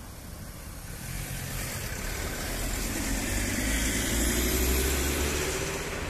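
A motor vehicle's engine running nearby on the street, getting louder over a few seconds and peaking about four to five seconds in, its engine note rising slowly as it pulls away.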